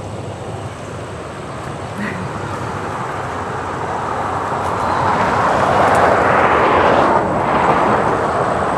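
A vehicle passing by: a rushing noise that swells over several seconds and eases off near the end.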